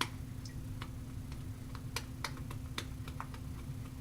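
Shaving brush being swirled over tallow shaving soap in its tub while loading, giving irregular light clicks and crackles from the still-airy early lather and wet bristles, over a low steady hum.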